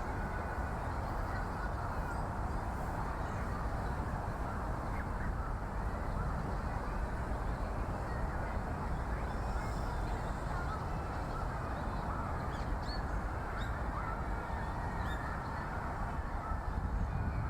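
Outdoor park ambience: a steady low rumble, with a few faint, short, high bird calls about two-thirds of the way through.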